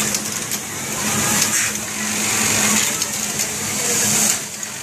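Garment-workshop machinery running: a steady hum under a constant hiss, with a few light clicks and short surges of hiss about halfway through and near the end.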